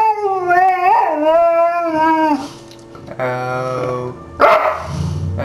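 Boxer dog howling ('singing'): one long, wavering howl lasting about two seconds, then lower, shorter howls with a sudden loud yelp about four seconds in.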